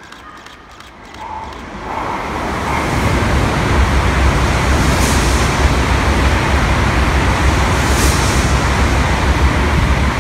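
Tokaido Shinkansen N700A high-speed train running through the station without stopping: a rush of air and wheel noise that builds as it comes out of the tunnel, then a loud steady rush over a deep rumble as the cars go by.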